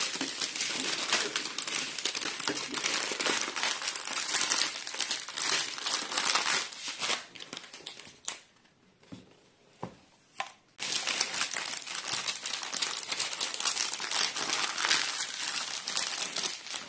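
Clear plastic packaging film crinkling as it is handled. The sound breaks off for about three seconds in the middle, leaving only a few soft knocks, then starts up again.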